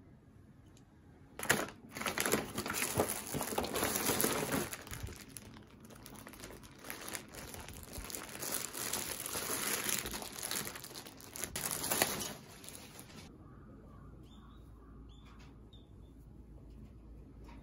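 A paper mailer bag and a clear plastic garment bag crinkling and rustling as a parcel is opened and the cardigan pulled out by hand, starting suddenly about a second and a half in and stopping about thirteen seconds in. Afterwards only faint handling sounds.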